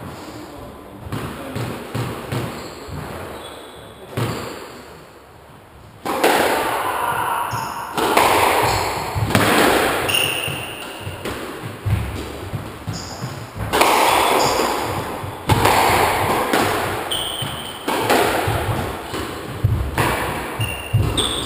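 Squash rally in an enclosed court: the ball cracks off rackets and walls about every two seconds, each hit ringing in the court. The hits start about six seconds in, after a quieter spell.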